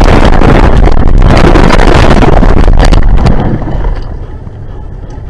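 Car crashing off an icy road and tumbling through snow, recorded by its own dashcam: constant crashing, scraping and knocks, loud enough that the recording distorts. The noise breaks off about three seconds in, leaving a much quieter steady noise as the car comes to rest.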